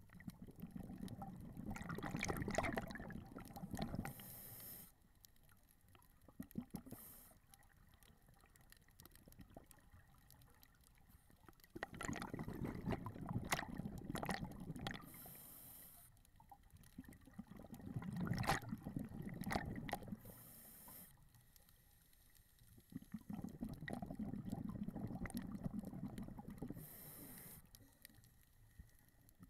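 Underwater sound of a scuba diver breathing through a regulator: four bursts of exhaled bubbles gurgling, each a few seconds long, with a short high hiss near the end of each, and quieter gaps between them.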